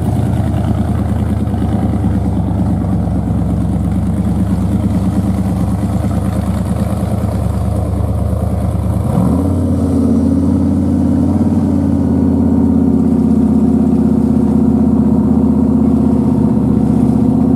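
A car engine running at a steady low idle. About nine seconds in the revs rise quickly, and it then holds a steady, higher and slightly louder note.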